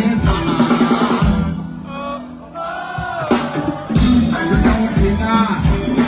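Live go-go band playing through the stage PA, a driving drum and percussion beat with vocals. About a second and a half in, the drums drop back for a couple of seconds, then the full beat comes back in about four seconds in.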